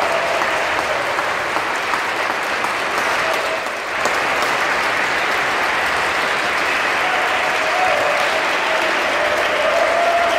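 Audience applauding steadily after an organ piece, briefly dipping about four seconds in.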